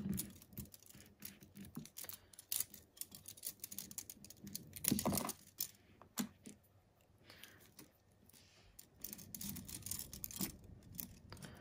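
Clear plastic nail swatch sticks clicking against each other and against a metal split ring as they are handled on the ring: scattered light clicks and taps, with a few sharper knocks.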